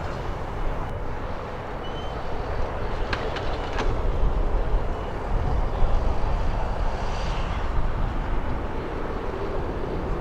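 Jet airliner's engines at takeoff power: a steady low rumble that slowly grows louder. A few faint clicks come about three seconds in.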